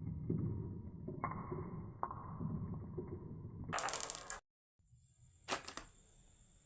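Marbles rolling down a wooden marble run track, a steady rumble with sharp clacks about a second apart, ending in a brief loud rattle before the sound cuts out.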